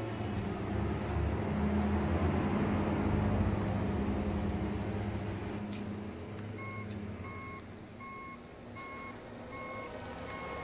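A vehicle running, its low hum swelling louder a few seconds in and then fading. From about two thirds through, a reversing alarm beeps steadily about twice a second.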